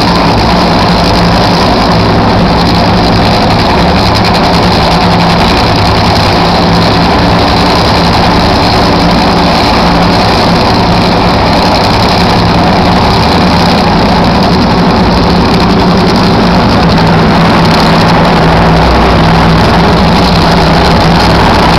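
Two nitromethane-fuelled Funny Car engines, supercharged V8s, idling loudly and steadily, a little louder in the last few seconds.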